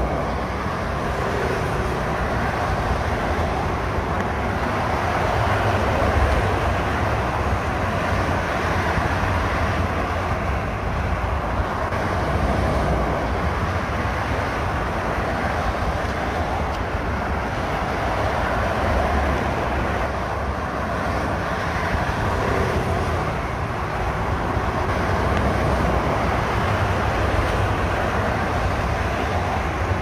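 Steady motorway traffic noise: the tyres and engines of cars and lorries passing on a multi-lane road, swelling and easing a little as vehicles go by.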